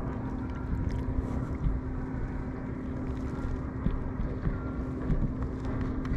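Wind rumbling and buffeting on the microphone, with a steady low hum underneath.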